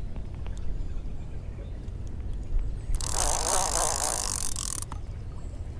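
Conventional baitcasting reel being cranked to bring in a hooked fish: gears whirring and ticking, with a louder spell of reel and line noise about three seconds in.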